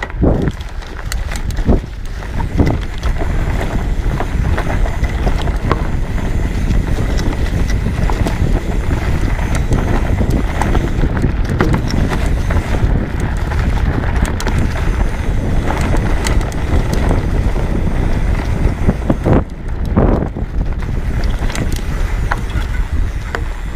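Riding a 29-plus mountain bike on a trail: a steady rush of wind on the microphone with frequent knocks and rattles from the bike over rough ground.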